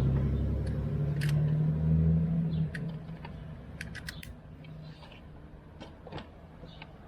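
A motor hums steadily with a low pitch, then stops about two and a half seconds in, leaving scattered light clicks and knocks.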